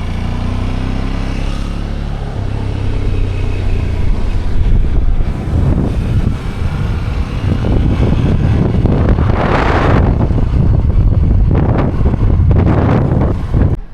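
Motorcycle engine running while riding, getting louder about four seconds in, with wind buffeting the microphone in gusts near the end. The sound cuts off abruptly at the end.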